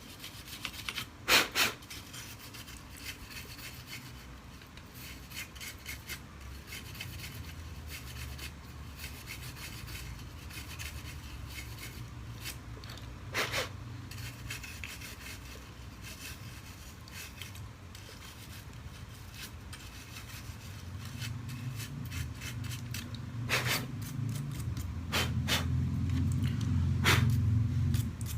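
A small brush scrubbing dust off the inside of a laptop: bristles rubbing over the plastic in quick strokes, with a few sharp taps. A low rumbling grows louder over the last several seconds.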